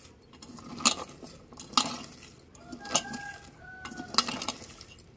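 Bangles jingling and clinking against each other and the stainless steel bowl as hands squeeze and knead sliced onions hard to draw out their juice, with a sharp clink about once a second.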